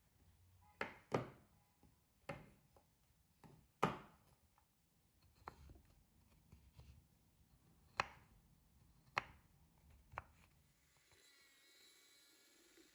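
Kitchen knife chopping down onto a cutting board, about seven sharp, irregularly spaced cuts. A faint steady sound with a few thin tones comes in near the end.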